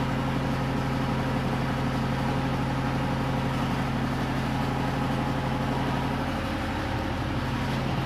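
A small engine idling steadily, an even low hum with a fine rapid pulse that does not change in speed.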